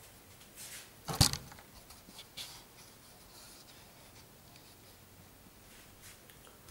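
Handling noise: a few light clicks and rustles with one sharp knock about a second in, then only faint room tone.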